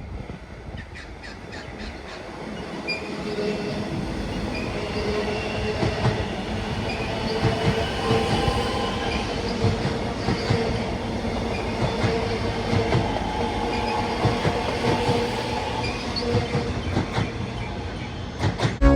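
X'Trapolis electric suburban train running along the rails, growing louder over the first few seconds. Its wheels squeal in steady high tones, over scattered clicks from the rail joints.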